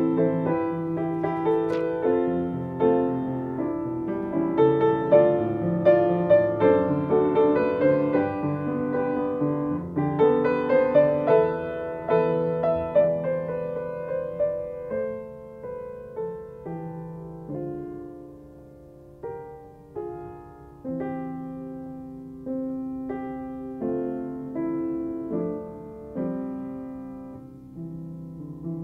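Solo piano played on a Chickering upright: full, flowing passages for the first half, then quieter, separate chords that each ring and fade before the next.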